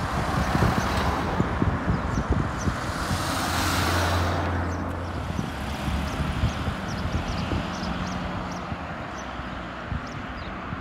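Road traffic passing: a car goes by close about a second in, then a louder vehicle with a low engine hum passes around three to four seconds in and fades down the road. Wind buffets the microphone, and small birds chirp in short high notes.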